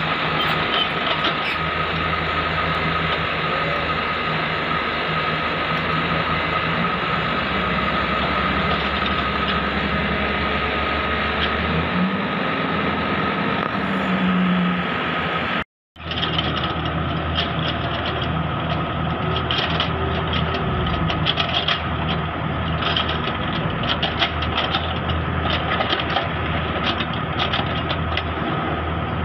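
Kubota mini excavator's diesel engine running steadily under work, with a steady high whine over the engine hum as the bucket spreads crushed coral rock. The sound drops out briefly about halfway through, then the engine carries on with scattered knocks and clicks of rock.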